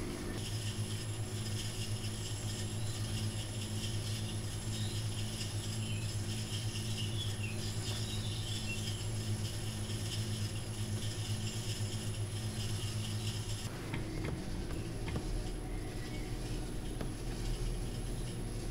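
Electric potter's wheel running with a steady low hum and a faint regular pulse about once or twice a second, with soft scraping of hands and a rubber rib on the wet clay of the turning pot. The pulse stops about three-quarters of the way through.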